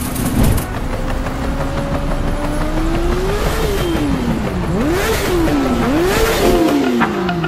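An engine revving. Its pitch climbs slowly for a few seconds, then swings up and down repeatedly, about once a second.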